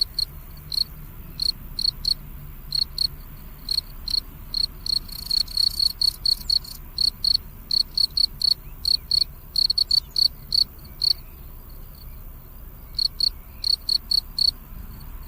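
Cricket chirping: short, high-pitched chirps in irregular runs, with a pause of about two seconds two-thirds of the way through.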